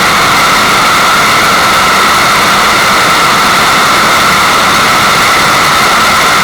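Loud, steady rush of water used as masking white noise, even and unchanging with no breaks.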